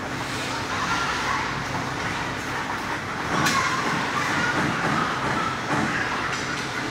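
Ice hockey game on an indoor rink: skate blades scraping the ice and sticks on the puck over a steady low arena hum, with one sharp crack about three and a half seconds in.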